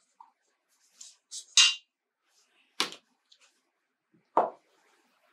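Stand mixer's dough hook being pulled off and lifted out of the stainless steel bowl: a few short metallic clinks and knocks, the loudest about a second and a half in.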